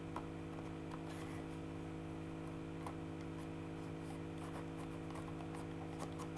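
A few faint clicks and taps of a plastic CD case being handled, over a steady low electrical hum.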